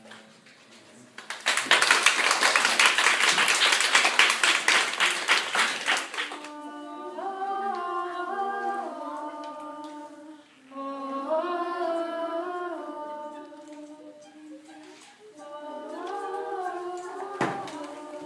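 Applause for several seconds, then voices singing long, sliding notes.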